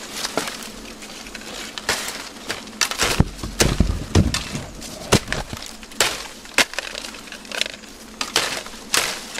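Dry bamboo sheaths, leaves and twigs crackling and snapping as an arm pushes through a bamboo clump: a string of irregular sharp cracks, with a heavier, deeper crunch about three to four seconds in.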